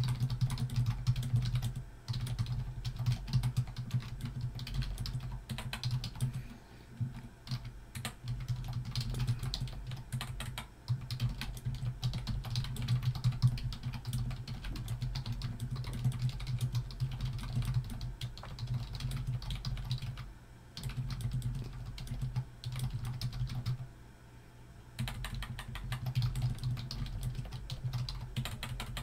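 Typing on a computer keyboard: quick, irregular runs of keystrokes with a couple of short pauses, over a steady low hum.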